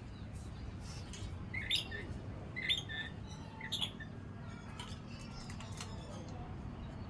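Lory (nuri parrot) giving short, sharp high-pitched chirps: three louder calls about a second apart in the first half, with fainter chirps scattered around them.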